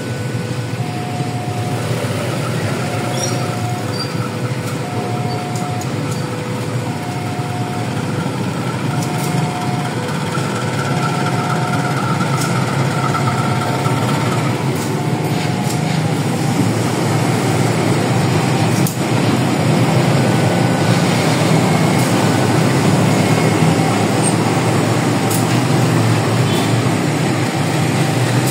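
Railway level-crossing warning signal chiming in alternating high and low tones, about one a second, over the rumble of a train. The rumble grows louder in the second half as the train passes.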